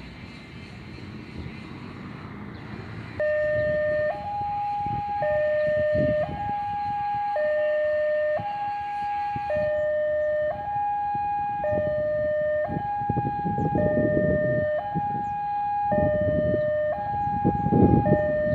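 Railway level-crossing warning alarm starting about three seconds in: an electronic two-tone signal alternating between a low and a high tone, each held about a second, as the barrier arms come down for an approaching train. Swelling engine rumble from passing road vehicles runs under it, loudest near the end.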